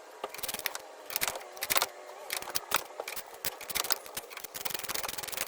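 Ratchet wrench clicking as the strut-to-knuckle pinch bolt is run in, with scattered metal clinks at first and a fast, dense run of clicks over the last couple of seconds.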